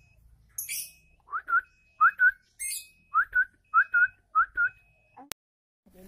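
A person whistles five quick pairs of short rising notes, calling to a loose lovebird to coax it in. A lovebird's shrill high chirps come twice between the whistles, and there is a single sharp click near the end.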